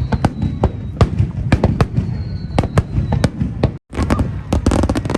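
Aerial fireworks going off in rapid succession: many sharp bangs and cracks, several a second, over a low rumble. The sound cuts out for a moment just before four seconds in, then a dense crackling barrage follows near the end.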